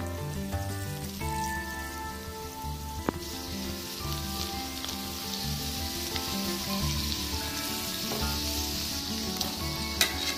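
Chopped green chillies frying in hot oil in a steel wok, with a sizzle that comes in about three seconds in and grows as they are stirred. A sharp crack near the end as sliced onions go into the oil.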